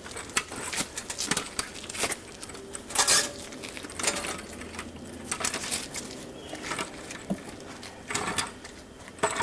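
Irregular metal clicks and clanks, with a louder knock about three seconds in, as a car body is rolled and shifted on a floor jack.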